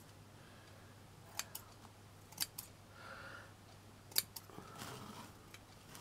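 Scissors snipping: three quick double clicks about a second apart, trimming stray fine strands from a small bird's nest, with faint rustling of the strands between cuts.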